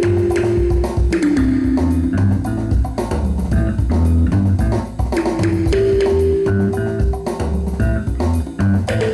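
Instrumental band music: a guitar playing long held melody notes over bass guitar and a drum kit keeping a steady beat.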